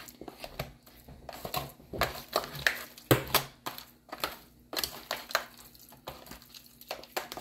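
Hands squishing and kneading seasoned raw steak in a plastic food container, a run of irregular wet squelching and rubbing strokes, with one louder knock a little over three seconds in.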